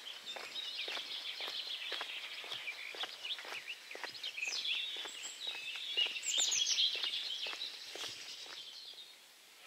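Footsteps on a tarmac lane at a steady walking pace, about two a second, under busy birdsong that thins out near the end.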